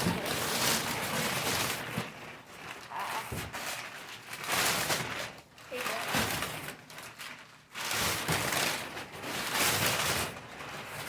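Paper or plastic packaging being torn open and rustled by hand, in repeated rough swishing bursts.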